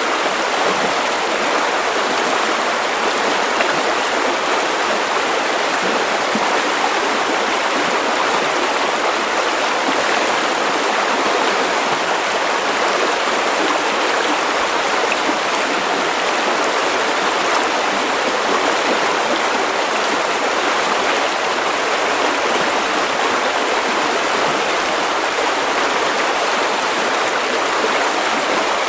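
River water running steadily over stones, an even rushing and babbling.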